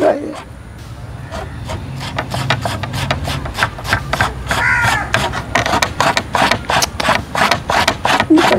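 A steel knife scraping the scalded outer skin off a boiled buffalo tongue against a metal plate, in repeated quick rasping strokes.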